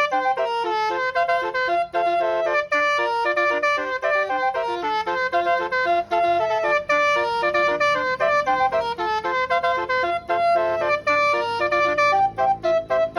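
Basuri 12-trumpet 'telolet' bus horn playing a tune, a quick run of short notes at changing pitches; the notes get choppier near the end.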